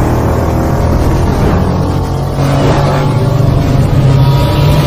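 A motor vehicle engine running loudly and steadily.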